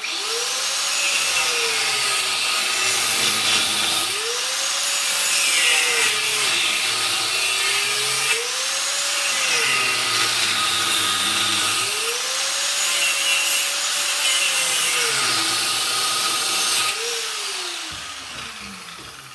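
Corded grinder with a cutting wheel slicing into a copper-and-aluminium heat sink held in a vise, with a loud grinding hiss. The motor's pitch sags each time the wheel bites into the metal and climbs again as the pressure comes off, about five times, then falls away as the tool spins down near the end.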